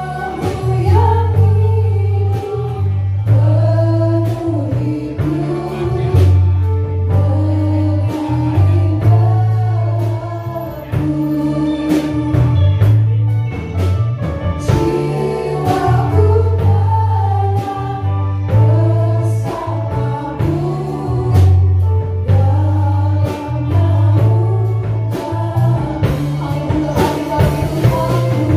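Live worship band playing a praise song: several women singing in Indonesian, backed by electric guitars, keyboard and a drum kit, over a strong bass line that changes note every second or two.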